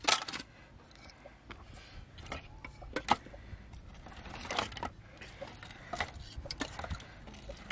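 Dry split kindling sticks knocking and clattering against each other and the clay wall as they are laid by hand into a tandoor oven. The knocks are irregular, the loudest right at the start and two more about three and four and a half seconds in.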